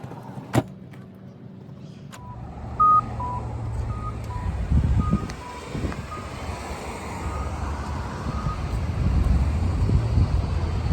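A van engine starting about two seconds in and running with a low rumble that grows louder, under a repeating two-note warning chime, about two beeps a second alternating high and low, that fades away. A single sharp click comes shortly before the engine starts.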